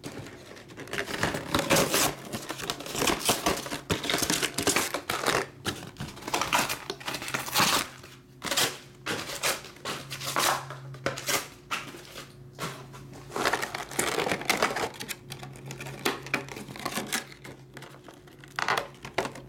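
Hands unpacking a Pokémon Elite Trainer Box: irregular rustling, crinkling and tapping of cardboard and plastic packaging and the items pulled from it.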